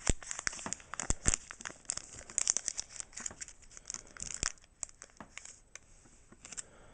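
Foil booster-pack wrapper crinkling and tearing as the pack is worked open by hand: irregular sharp crackles, thinning out in the last couple of seconds.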